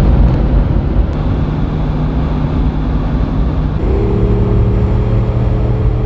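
Jeep Wrangler 392's 6.4-litre V8 engine and road noise while driving: a heavy low rumble that settles into a steady drone about four seconds in.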